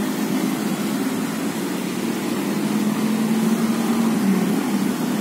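A steady low engine hum, dipping slightly in pitch about four seconds in.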